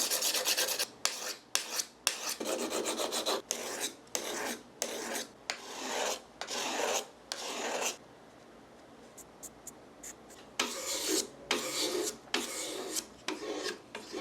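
A hook knife's steel edge being worked with 1000-grit sandpaper wrapped around a wooden dowel: quick scraping back-and-forth strokes, about two a second. The strokes pause for about two and a half seconds in the middle, then start again.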